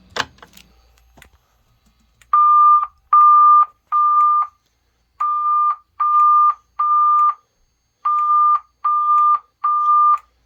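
A click as the EST dual-action pull station is pulled. Then the EST voice-evacuation speaker strobes sound a steady, mid-pitched alarm tone in the temporal-three pattern: three groups of three beeps, each about half a second long, with a longer pause between groups.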